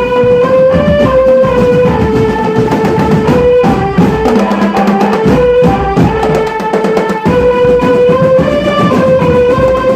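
Drum band playing: a melody of held notes stepping up and down over a dense beat of drums, the low drums dropping back for a few seconds midway.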